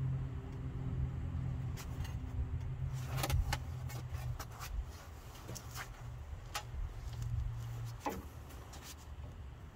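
An engine running steadily with a low hum, with scattered metal clinks and knocks over it; the hum eases about eight seconds in.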